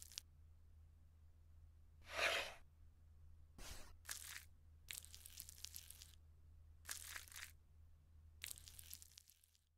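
Six short bursts of noise, the one about two seconds in the loudest, over a faint low hum.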